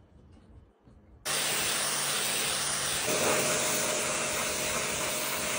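Pressure washer spraying a dirty boat deck: the loud hiss of the water jet starts suddenly about a second in and holds steady, with a steady hum beneath it.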